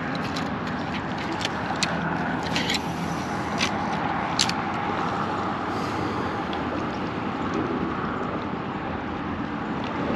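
Steady rumble of road traffic crossing the highway bridge overhead, with several sharp ticks in the first half.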